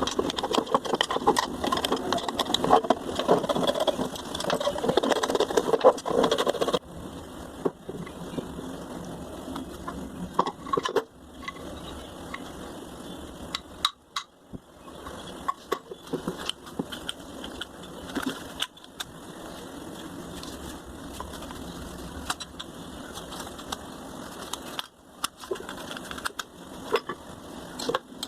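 Small generator engine running with a rattle and scattered clicks. It is louder and denser for about the first seven seconds, then steadier and quieter.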